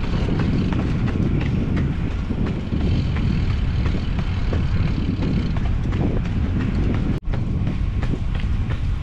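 Wind buffeting the microphone of a camera carried on a run, a steady low rumble, with the faint patter of running footsteps on wet pavement. The sound drops out for an instant about seven seconds in.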